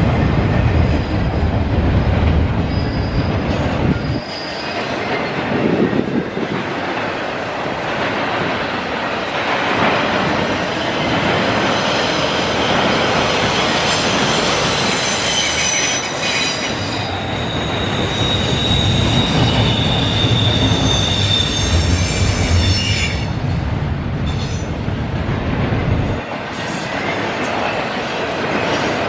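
Double-stack intermodal well cars rolling past at track side, a steady rumble of steel wheels on rail. High-pitched wheel squeal sets in about halfway through and rings on for several seconds.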